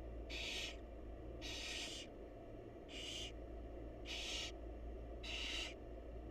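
Barn owl chicks giving their hissing begging calls, five short rasping hisses about a second apart.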